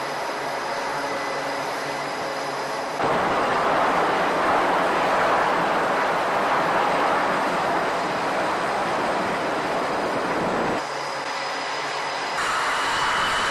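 Jet engines running on an aircraft carrier flight deck: a steady rushing noise that changes abruptly in tone and loudness about three seconds in, again about eleven seconds in, and once more near the end.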